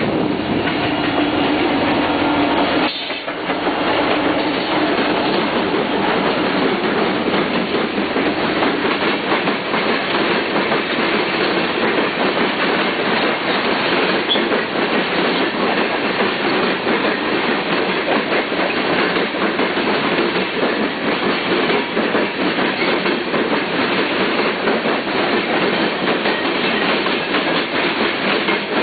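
Freight train of loaded tank cars rolling past close by, steel wheels clicking over the rail joints in a steady clickety-clack. In the first three seconds the lead diesel locomotives add a steady tone as they go by.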